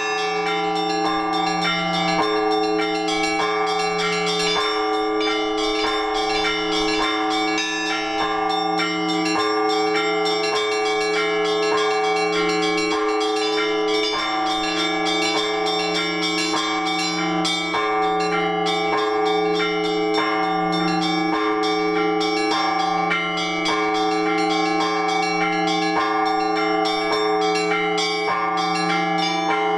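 Russian Orthodox church bells rung by a bell-ringer, recorded up close on the belfry. Quick, constant strikes on the small bells ring over the steady hum of the larger bells, without a break.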